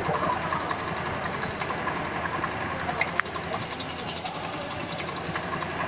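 Honda Activa 4G scooter's single-cylinder engine running steadily with its CVT drive belt turning, while belt dressing hisses from an aerosol can onto the belt. Two short clicks about three seconds in.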